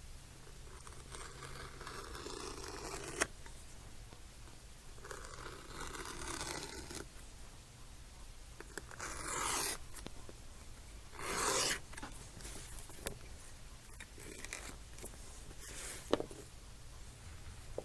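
A knife blade drawn through thick vegetable-tanned saddle skirting leather in several separate cutting strokes, each a second or two long with pauses between, and a few sharp clicks.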